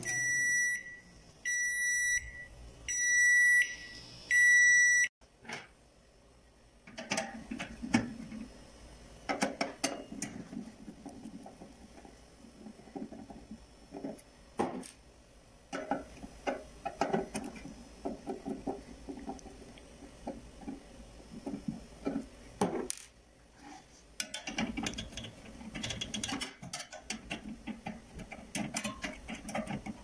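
A microwave oven's hum cuts off and its control panel beeps four times, each a short high-pitched tone, spread over about five seconds. From about seven seconds on come irregular clicks, knocks and scrapes of a screwdriver and hands working on the opened oven around the magnetron.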